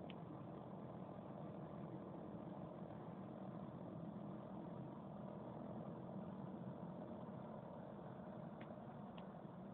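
Twin turboprop engines of a C-27J Spartan military transport running with a steady, even drone.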